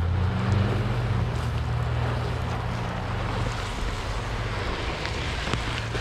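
Wind rumbling on the microphone, a steady low rumble with a few faint clicks.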